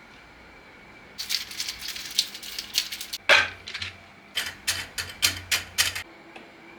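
Rapid clicking and rattling of small hard objects, starting about a second in and stopping about six seconds in, with one louder swish a little after three seconds.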